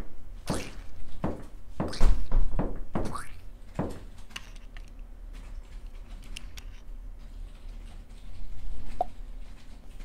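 Footsteps of hard-soled dress shoes on a wooden parquet floor, a steady walking pace for the first four seconds, with one heavier thump about two seconds in. Then only faint clicks and handling sounds.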